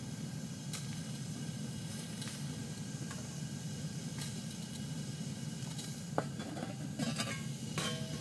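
Water heater's burner running with a steady low rumble, while irregular drips splash and tick against it, a few bunched together about six to eight seconds in. The dripping comes on whenever the burner fires and is new to this heater.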